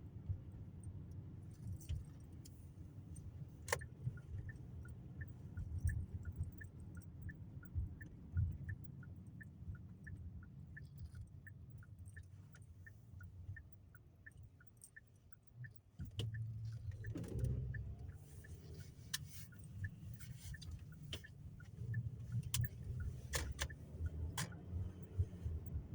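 Low rumble of a car's engine and road noise inside the cabin, growing louder about two-thirds of the way through, with a steady turn-signal ticking and scattered light clinks.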